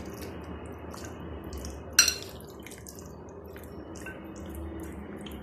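A metal utensil stirring chicken drumsticks in a wet yogurt and spice marinade in a glass bowl: soft wet squelches and light clinks against the glass, with one sharper clink about two seconds in. A steady low hum runs underneath.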